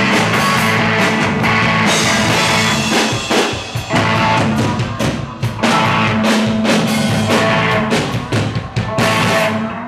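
Live rock band playing: electric guitar, electric bass and drum kit together, with steady drum hits. The song stops just before the end.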